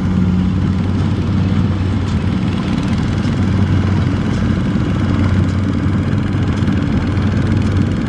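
Single-cylinder diesel engine of a two-wheel power tiller running steadily as it pulls a loaded trailer, a constant low chugging hum.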